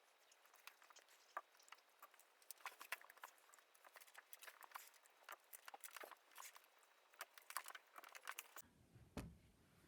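Near silence with faint, irregular taps and clicks from books being handled and set down.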